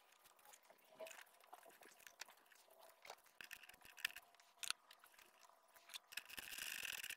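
Faint handling noise of a wrench on a car's 12-volt battery negative terminal: light scraping and ticking, two sharp clicks about four seconds in, and a short rasping burst near the end.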